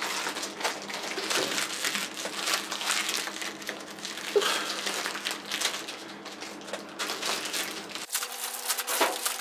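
A plastic Bigfoot snack bag crinkling and crackling irregularly as it is twisted and pulled at by hand and teeth, in a struggle to tear it open.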